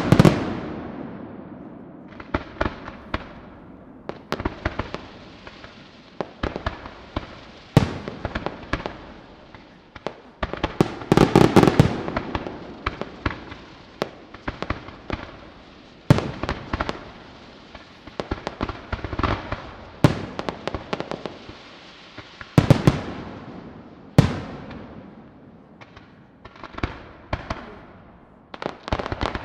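Aerial fireworks display: shells bursting in a run of sharp bangs and crackling, the louder reports trailing off in an echo. The bangs come thickest in dense volleys about a third of the way in and again about three quarters of the way in, with sparser single reports between.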